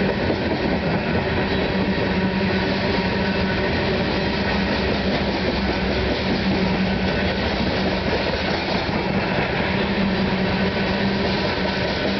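Coal hopper cars of a CSX freight train rolling past at speed: a steady, unbroken noise of steel wheels on rail, with a steady low hum running through it.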